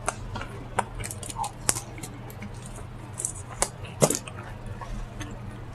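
Close-miked mouth sounds of a person chewing food, with scattered wet smacks and clicks.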